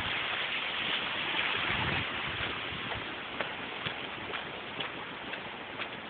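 Steady hiss of traffic tyres on a wet, slushy street, loudest over the first two seconds and then easing, with a few faint footsteps on the wet pavement.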